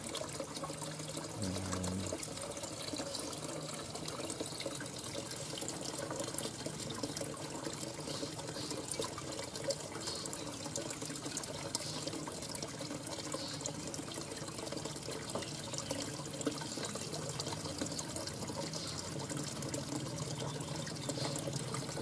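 Steady trickling of running water, with faint high chirps from small aviary birds.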